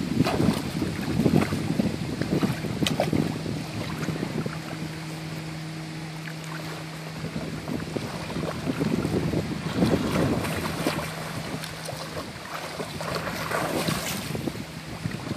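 Lake water sloshing and lapping against the microphone at the waterline, with swimmers' splashing loudest near the start and again near the end. A low steady hum runs through the middle.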